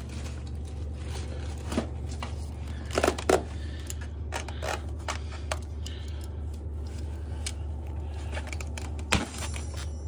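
Plastic zip ties being snipped with cutters, giving sharp snaps: one about two seconds in, a quick cluster about three seconds in, and another near the end, with light rustling of packaging between. A steady low hum runs underneath.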